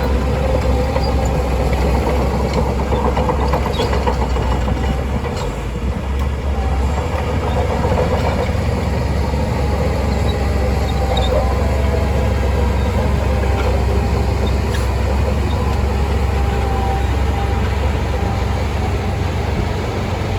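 Shantui DH17C2 crawler bulldozer at work: its diesel engine runs steadily with a deep rumble, along with metallic clatter from the tracks.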